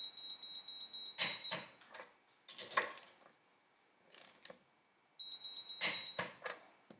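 A digital torque tester gives a steady high beep while a click-type torque wrench is pulled slowly and steadily on a wheel's lug nut, and the beep ends with the wrench's sharp click. This happens twice, with another sharp click between them.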